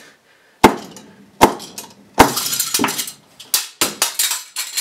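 Hammer striking a ceiling-mounted plastic electrical box and its outlet cover plate: three sharp blows about a second apart, then a quicker run of blows with clattering and breaking.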